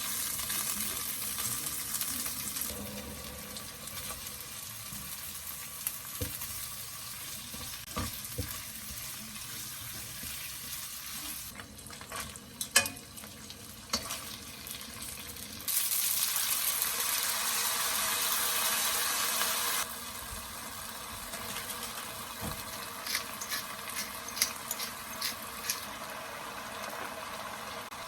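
Food sizzling in a frying pan while it is stirred, with scattered clicks and knocks of utensils. About halfway through, a louder rushing hiss starts suddenly and cuts off about four seconds later.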